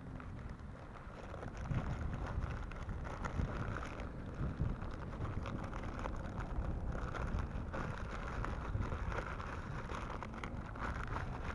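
Wind buffeting the microphone, with the crinkling rustle of plastic and kite fabric handled close by as a kite is packed into its bag.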